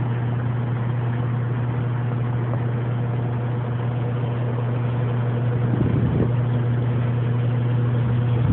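A steady low engine-like hum, even in pitch, over a background of noise, with a brief louder, rougher stretch about six seconds in.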